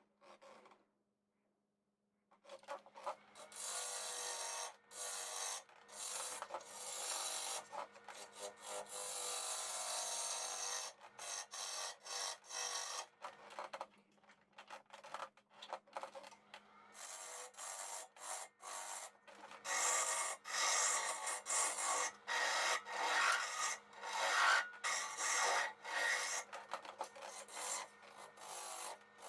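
Sandpaper rubbing on a piece of alder spinning on a wood lathe: a rasping hiss that starts about two seconds in and keeps stopping and starting in short strokes. A faint steady low hum runs underneath.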